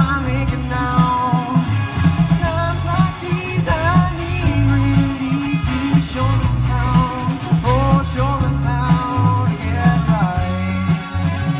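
Live rock band playing a song, with electric guitars, bass, drum kit and keyboard under a steady drum beat, and a lead voice singing over them.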